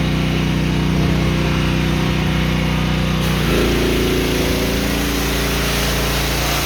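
Kohler gasoline engine of a 4000 psi hot-water pressure washer running steadily. About three seconds in, a hiss rises and the engine's tone shifts to a new, steady pitch.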